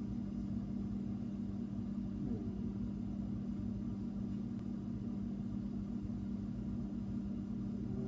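Steady low machine hum: a few low tones held level over a faint rumble.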